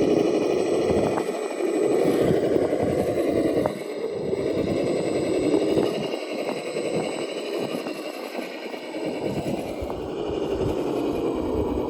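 Radio-controlled rock crawler driving: its small electric motor and gearbox whine steadily, the pitch wavering and the level easing off for a while in the middle, with a few light clicks.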